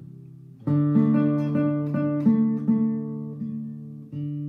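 Nylon-string classical guitar played with the fingers, with no singing. A chord sounds about half a second in, then a run of plucked notes over it, and a new chord near the end.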